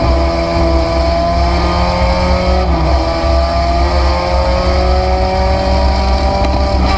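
Race car engine heard from inside the stripped cockpit under hard acceleration, revs climbing steadily, dropping with a gear change about three seconds in, then climbing again. A heavy low rumble sits under the engine note.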